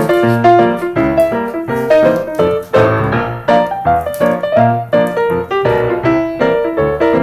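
Background piano music, an upbeat melody of quick notes over a bass line.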